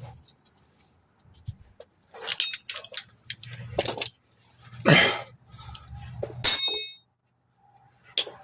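Metal hand tools clinking and clanking against each other and against metal during engine work, a handful of sharp knocks, some with a brief ringing, with quiet gaps between.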